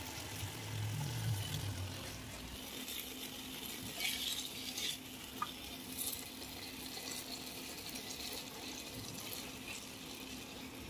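Butter-garlic sauce simmering gently in a nonstick pan while a silicone spatula stirs and turns the chicken pieces through it, with a few brighter scrapes a few seconds in.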